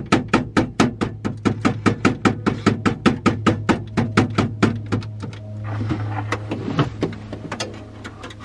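Fingers tapping rapidly on the casing of a stuck car CD changer, about five even taps a second, to shake loose the jammed unit. The tapping stops about five seconds in, followed by a brief rustle and a few scattered knocks over a steady low hum.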